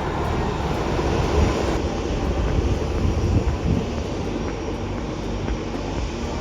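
Jet airliner engines heard from the ground as the aircraft passes, a steady loud rumble with a wide spread of noise.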